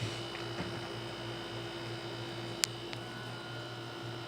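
Steady electrical hum with one sharp click about two and a half seconds in.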